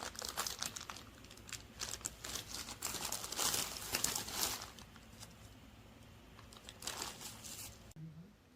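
Packaging crinkling and rustling as it is handled, in dense irregular crackles that thin out after the first few seconds and stop abruptly near the end.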